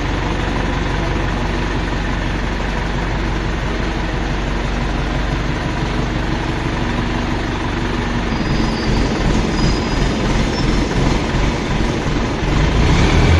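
Mobile crane's engine running steadily while it works the boom to lower a heavy load, growing rougher and louder over the last few seconds.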